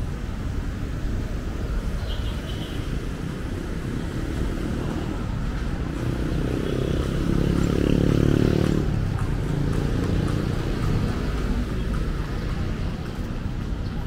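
Road traffic running steadily by. A heavy vehicle's engine passes close about halfway through, swelling to a peak and then fading.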